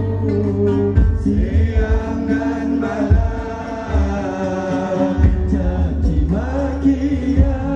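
Live Islamic devotional qasida (sholawat) sung through a loud PA, a single voice holding and bending long melodic lines. Gambus-style accompaniment with a steady heavy bass and drum strokes every second or two sits underneath.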